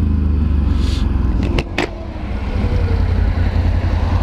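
Can-Am Renegade 1000's V-twin engine running with a low rumble; about one and a half seconds in it drops off briefly with a couple of sharp clicks, then picks up again.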